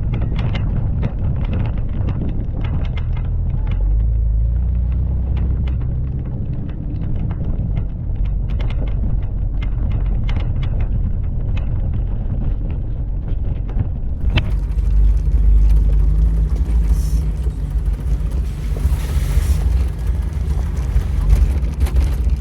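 Jeep TJ driving a rough dirt trail, heard from inside: a low engine and tyre rumble with frequent knocks and rattles. About two-thirds of the way in the rattling stops and gives way to a steadier engine drone.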